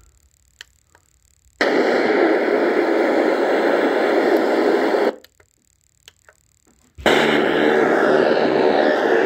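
Small Bluetooth motorcycle stereo speaker hissing with FM radio static from a station that isn't tuned in. The hiss cuts off for about two seconds in the middle, with a few small button clicks, then comes back on.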